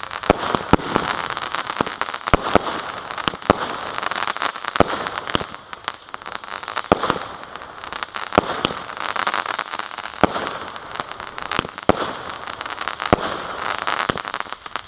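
Fireworks going off: a steady run of sharp bangs, often several a second, over continuous crackling that swells and fades.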